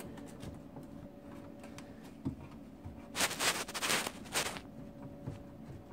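A grommet and sensor lead being worked by hand in a hole in an incubator's sheet-metal housing: a faint click, then about a second and a half of rubbing and scraping as the grommet is eased loose.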